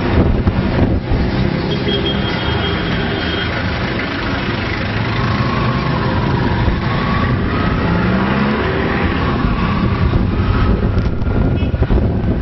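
Road noise from riding along a busy highway: a steady rush of engine, tyres and wind, with a jeepney running alongside at the start. An engine note rises briefly about eight seconds in.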